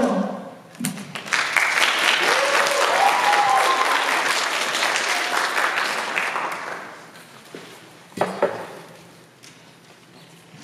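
Audience applauding with a whoop or two, building about a second in and dying away around seven seconds in.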